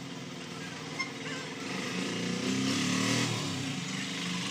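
A motor vehicle's engine running in the background, growing louder and then dropping in pitch about three seconds in, as when it passes by. A short click about a second in.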